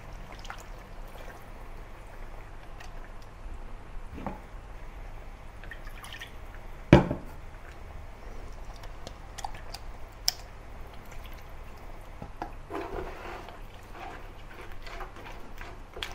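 Thick onion-yogurt paste being scraped from a plastic jug onto a wooden spatula and dropped into a pan of lamb curry, with soft wet plops and small clicks. There is a sharp knock about seven seconds in and a lighter click near ten seconds, then the wooden spatula starts stirring the paste into the gravy near the end.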